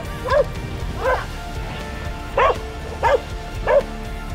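A dog barking five times in an irregular run, each bark short and sharp.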